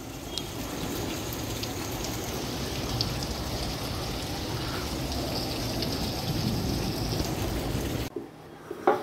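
Steady rain falling, pattering into puddles on concrete and onto leaves; it cuts off suddenly near the end.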